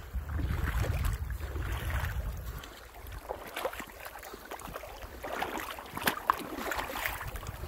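Wind buffeting the microphone with a low rumble for the first couple of seconds, then irregular crunching of footsteps through deep snow.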